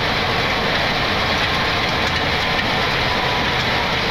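Steady rushing roar of a Boeing 737 on its landing rollout, heard in the cockpit, as the jet slows under manual braking.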